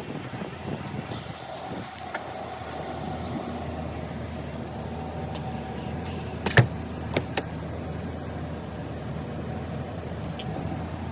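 Car engine running steadily, with a sharp knock about six and a half seconds in and two lighter clicks soon after.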